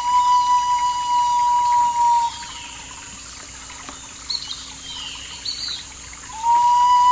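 A flute holds one long steady note that breaks off about two seconds in. In the quieter stretch that follows, birds chirp a few times with short high calls, and the flute comes back with another long note near the end.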